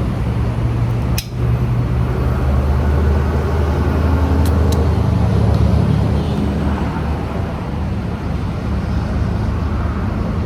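A motor vehicle's engine idling close by: a steady low hum. A single sharp click comes about a second in.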